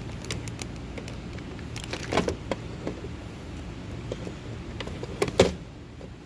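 Scattered light clicks and knocks of a part being handled, with a cluster about two seconds in and a sharper knock about five and a half seconds in, over a steady low hum.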